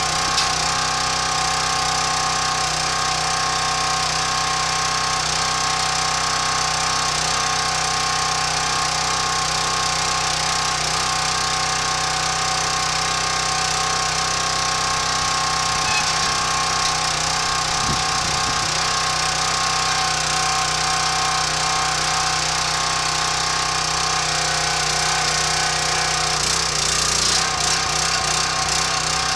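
Small gasoline engine of a 25-ton log splitter running steadily, driving the hydraulic pump, with a slight rise near the end.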